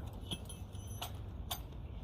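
Three light metallic clicks and clinks, the last two half a second apart, over a steady low rumble.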